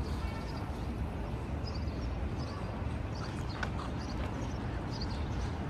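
Footsteps on pavement, faint regular steps about every half second to second, over a steady low rumble of street noise.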